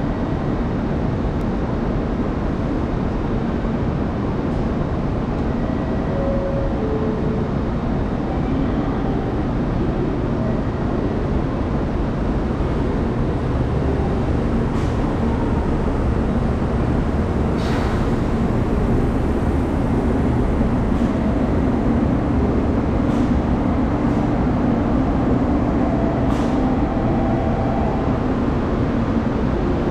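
JR Kyushu 783 series electric train pulling out and running past at low speed: a steady rumble of motors and wheels that grows louder in the second half, with a few sharp clicks from the running gear.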